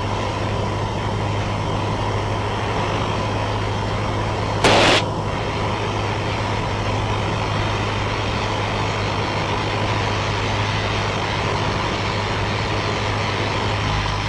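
Steady drone of a Cessna 172N's four-cylinder Lycoming engine and propeller heard inside the cabin in flight, with a faint steady whine above it. A short, loud burst of noise breaks in once, about five seconds in.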